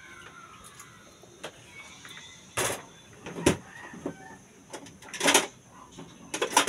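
Dishes clattering as they are taken out of a plastic dish rack: several short, sharp clatters, the longest just after five seconds in.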